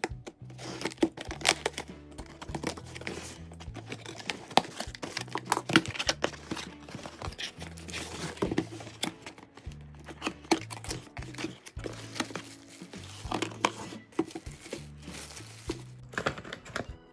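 A cardboard shipping box being unpacked by hand: a blade slitting the packing tape, then the flaps and packaging scraping, crinkling and tearing in quick irregular crackles. Background music with a low bass line plays underneath.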